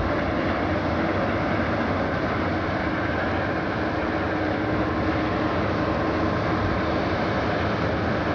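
Tugboat's diesel engine running steadily as it moves a barge along, a constant unbroken drone with a faint steady hum in it.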